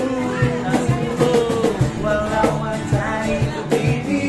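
A busker singing with held, sliding notes to a strummed acoustic guitar, over a steady low beat.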